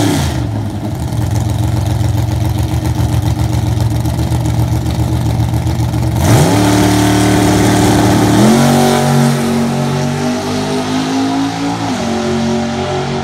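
Chevrolet S-10 drag truck's engine, a rev falling away at the start, then held at a steady note on the starting line. About six seconds in it launches with a fast climb in pitch, then the note drops twice at upshifts as the truck pulls away down the strip.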